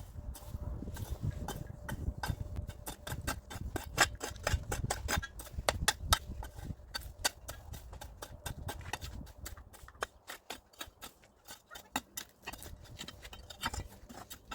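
A rapid, irregular series of small clicks and taps, with a low rumble under them that fades about ten seconds in.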